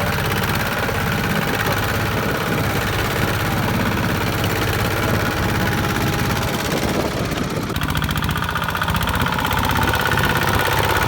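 Diesel farm machine engine running with a steady, rapid chugging, easing briefly about seven seconds in and picking up again toward the end.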